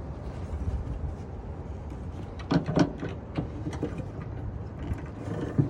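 A few light clicks and knocks from tailgate handle parts being worked by hand, over a steady low background rumble.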